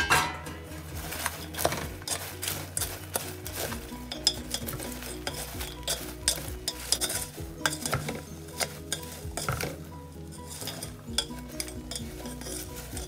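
Wooden chopsticks stirring popcorn in a metal pot as it is coated in caramel: repeated clicks and taps of the sticks against the metal and the rustle of the popcorn, with a sharp clatter right at the start.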